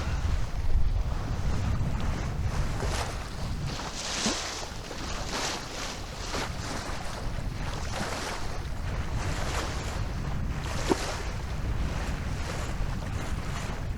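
Water rushing and splashing along the hull of a Maxi 95 sailboat under sail, in hissing swells about every second, over a steady low rumble of wind on the microphone.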